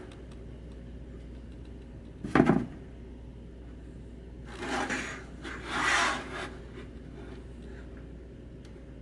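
Hard plastic toy figures handled on a tabletop: a sharp plastic clack about two seconds in, then two scraping, sliding sounds as the figures are turned around on the surface.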